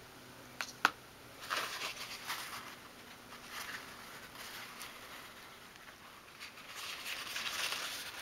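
Paper tissue rustling and crinkling as it is picked up, folded and dabbed on a small curtain pole to wipe off excess wood dye, in several separate handling bouts. Near the start, two light taps as the paintbrush is set down on the table.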